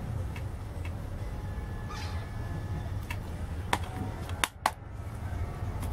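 Plastic DVD keep case being handled and snapped shut: a few sharp clicks between about three and a half and four and a half seconds in, over a low steady hum.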